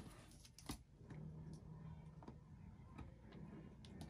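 Near silence with a few faint, sharp clicks and taps about a second apart, over a low steady hum.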